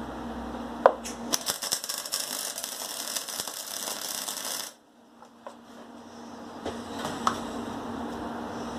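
Electric arc welder making a tack weld on steel tube: a dense crackling for about three seconds that cuts off sharply. Light metal clinks come just before and a couple of seconds after.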